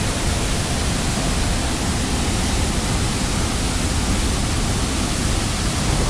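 Waterfall in heavy monsoon flow: a loud, steady roar of falling water.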